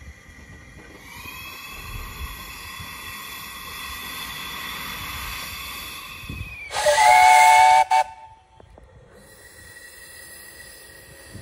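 Small steam tram locomotive: steam hissing with a faint steady high tone for several seconds, then a loud steam whistle blast about seven seconds in, lasting about a second, with a short second toot right after.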